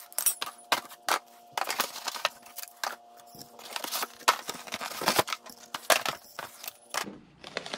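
Plastic packaging crinkling and cardboard box flaps being handled, a dense run of irregular crackles, rustles and small knocks.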